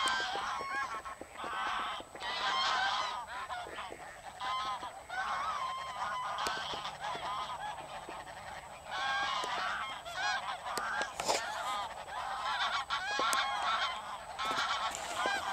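A large flock of greylag geese honking, many calls overlapping without a break.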